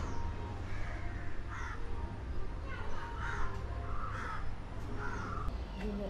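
Crows cawing, about six harsh caws at irregular intervals, over a low steady background rumble.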